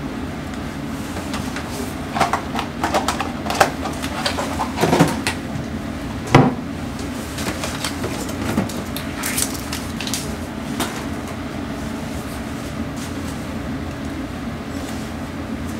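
Paper tea-bag wrapper crinkling and tearing as a tea bag is opened and put into a stainless steel vacuum flask, with a single sharp knock about six seconds in and a few more small rustles after. A steady low hum runs underneath.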